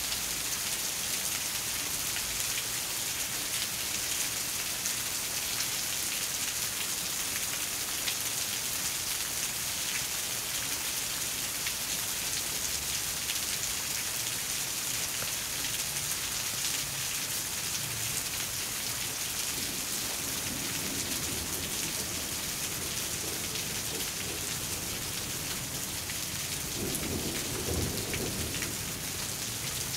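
Steady rain, an even hiss that runs unbroken, with low rumbles in the last third.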